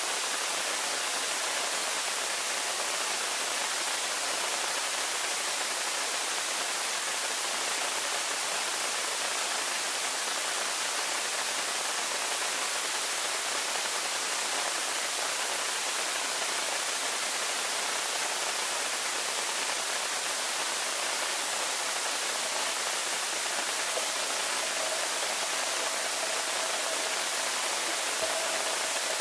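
Steady underwater hiss of a swimming pool, heard through a camera resting on the pool floor. A faint steady whine comes in late.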